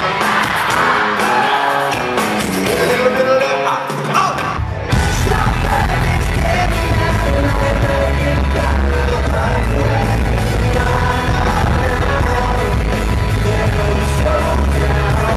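Pop-rock band playing live in an arena, with electric guitars, drums and lead vocals, recorded from among the crowd, with fans yelling. The recording jumps to another part of the set about five seconds in, after which the low end is heavy and booming.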